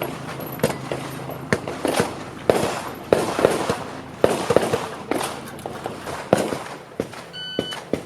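Handgun shots fired in rapid, uneven strings, several a second, as pistols are fired at a practical shooting match. A short high electronic beep sounds near the end.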